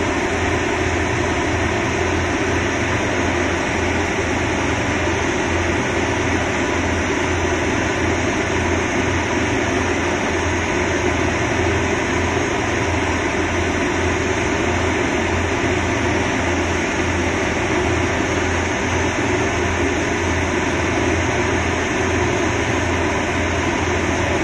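Engine of a self-loading concrete mixer running steadily, with a fast low throb under an even mechanical noise.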